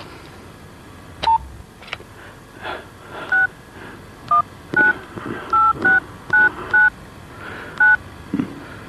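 Touch-tone telephone keypad being dialed: about eight short two-tone beeps in an uneven rhythm, with a few clicks of the handset and keys.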